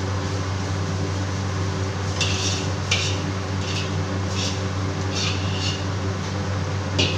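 A metal utensil scrapes and clanks against a wok about seven times at an uneven pace, over a steady mechanical hum from the kitchen.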